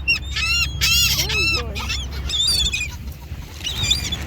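Several birds calling: a quick run of short, arching honk-like calls in the first second and a half, then higher, thinner wavering calls near the end.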